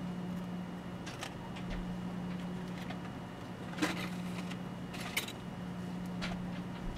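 A steady low hum with three short, faint clicks of small watchmaking tools and parts being handled on the work mat.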